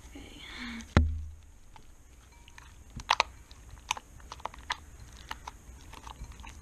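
Purple foam slime studded with foam balls being squeezed and kneaded by hand in a bowl, giving scattered small clicks and crackles. A single sharp thump about a second in is the loudest sound.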